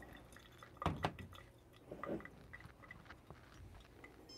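Pour-over coffee gear being handled on a table: two light knocks close together about a second in, a softer clatter around two seconds, and faint small clicks between.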